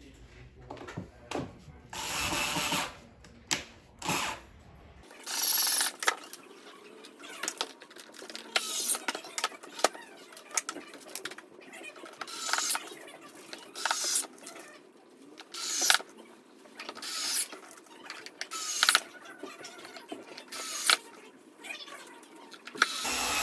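Screws being driven back into the plastic battery case with a screwdriver during reassembly: short mechanical bursts repeating about once a second, with faint handling sounds before them.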